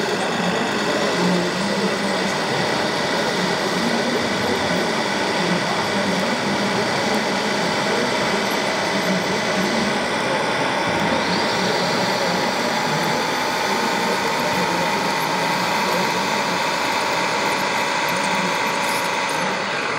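Steady whir of the small electric drive motors and gears of a radio-controlled Liebherr crawler dozer working through dirt, over a constant hall din. A faint whine slowly rises in pitch over the second half.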